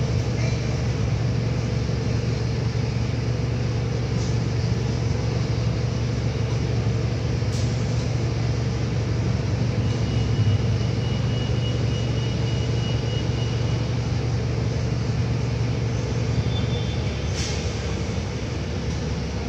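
Interior of a New Flyer Xcelsior XD40 diesel transit bus standing still with its engine idling: a steady low hum, with a couple of brief clicks and a faint thin tone partway through.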